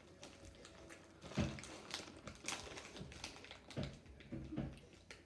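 Faint snack-bag crinkling and crunching of a spicy Cheeto being eaten: scattered small crisp clicks with a few short low thumps.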